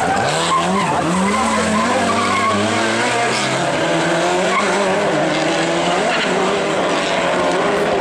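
Rally car engines revving hard through bends, the pitch climbing and falling again and again with gear changes and lifts off the throttle.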